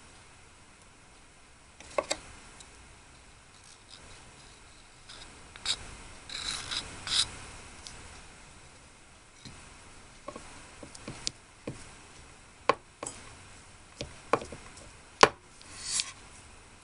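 Small hard objects being handled close up: scattered sharp clicks and taps, with a short scraping rub about six seconds in and a run of quicker clicks in the second half, like tiny miniature dishes and utensils being set down and worked.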